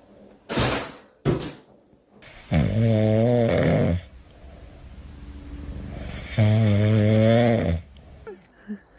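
Loud snoring: two long, wavering snores a few seconds apart, with a breathy draw of air swelling between them. Two short bursts of noise come in the first second and a half.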